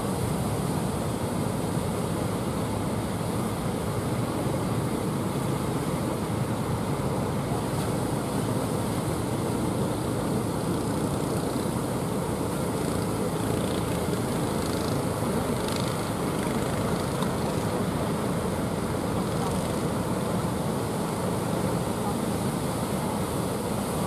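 Heavy surf breaking, a steady rushing noise with no let-up.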